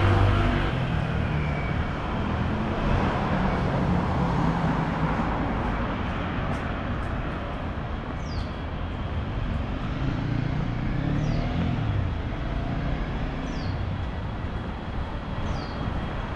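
Street traffic noise: cars running past in a steady low rumble.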